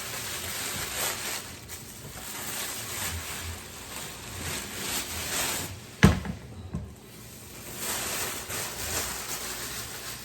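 Rustling and handling of packaging as an Instant Pot is unboxed, with one sharp thump about six seconds in and a lighter knock just after.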